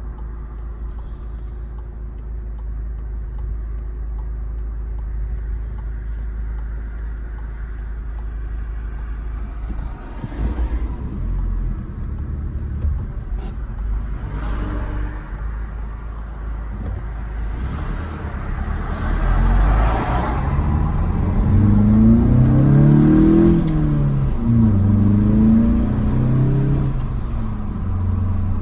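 2018 VW GTI MK7.5's turbocharged EA888 four-cylinder, fitted with a BMS Elite intake and turbo muffler delete, heard from inside the cabin. It runs at a steady low drone, then about two-thirds in it accelerates hard: the engine note rises, drops at an upshift, and rises again.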